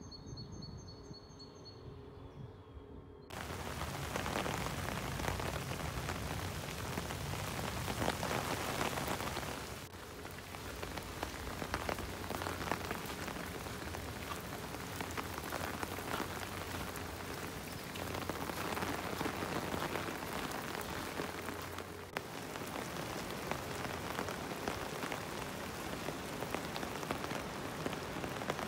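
A bird chirps briefly at the start. About three seconds in, steady rain sets in suddenly: a dense hiss of many small drop ticks that runs on, dipping briefly twice.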